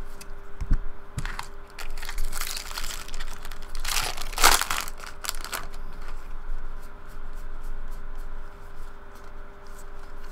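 Trading cards and foil card-pack wrappers being handled: rustling and crinkling, with louder bursts about two seconds and four and a half seconds in.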